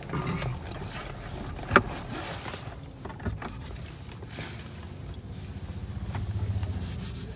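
Paper tissue and food packaging rustling as a tissue is pulled out and handled, with one sharp click about two seconds in. Near the end a low, rough, swelling sound as the tissue is pressed and rubbed against the face.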